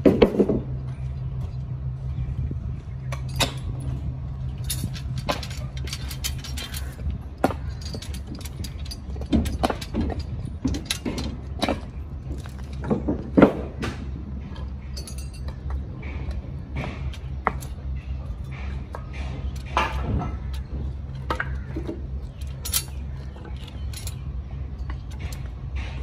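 Scattered metallic clicks and ticks of steel tie wire being twisted around rebar with a hooked tie tool, with the tool and wire knocking against the bars. Under it runs a steady low hum.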